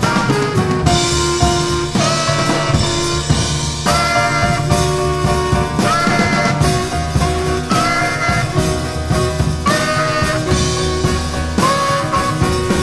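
Jazz quartet playing live: a bass clarinet holds long notes that bend up into pitch at their starts, over piano, double bass and a busy drum kit.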